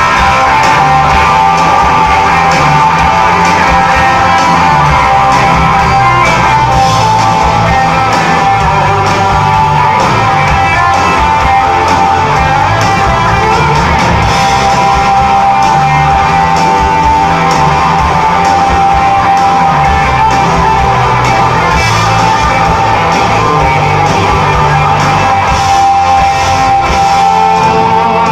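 Rock band playing live, loud: electric guitars holding sustained notes over bass and drums.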